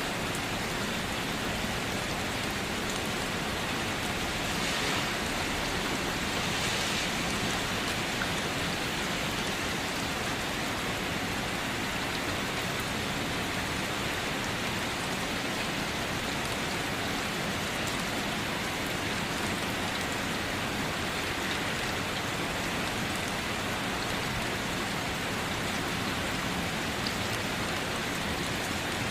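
Steady rain falling and pattering on surfaces, an even hiss with a brief swell a few seconds in.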